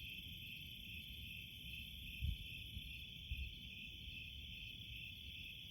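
Steady chorus of crickets chirping, with two soft low thumps about two and three seconds in.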